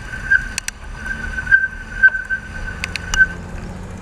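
Bicycle being ridden on a road: a steady high squeal that swells now and then, a few sharp clicks and rattles, and a low rumble underneath.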